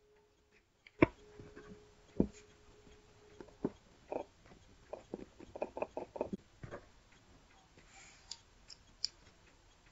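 Knocks and clicks from a wooden battery holder and two 18650 lithium-ion cells handled on a cutting mat: two sharp knocks about a second apart, then a run of light taps and clicks as the cells are adjusted in the holder.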